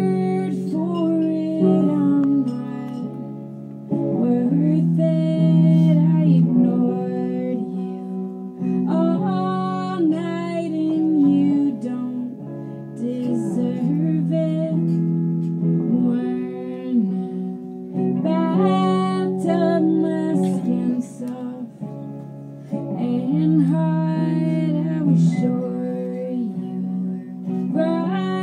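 A woman singing a song live to her own strummed guitar, the voice coming in phrases of a few seconds with short breaks while the chords ring on.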